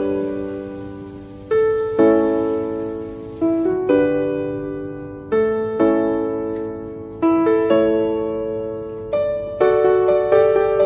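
Background piano music: slow chords struck every second or two and left to fade, with quicker notes near the end.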